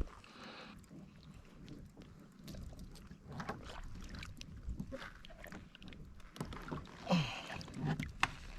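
Scattered knocks, clicks and splashes around a kayak as a small fish is brought up and handled, with the loudest burst of noise about seven seconds in.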